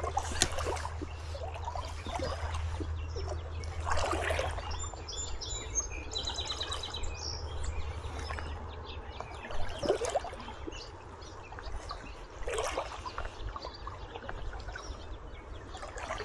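River water splashing and sloshing in short bursts a few seconds apart, as from someone wading through a shallow river, over a steady trickle. A bird sings a quick high trill about midway, and a low rumble runs through the first half.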